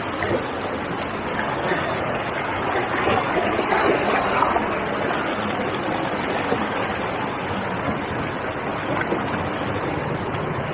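River water rushing over rocks in a shallow, fast stretch, a steady loud rush.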